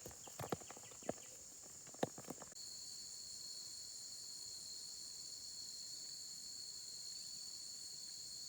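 Insects, crickets or the like, making a steady high-pitched drone, with a second, higher steady tone joining abruptly about two and a half seconds in. A few light knocks or taps come in the first two seconds.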